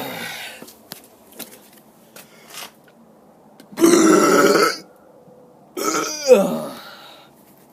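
A man burping on purpose: one burp trails off at the start, then two loud burps of about a second each follow, near the middle and near the end. The last one falls in pitch.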